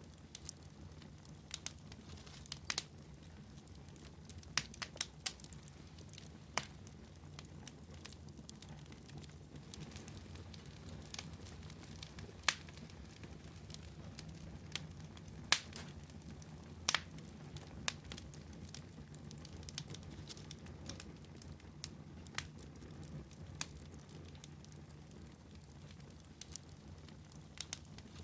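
Fire crackling in a fireplace: irregular sharp pops and snaps, a dozen or so of them louder than the rest, scattered over a low, steady background of the burning.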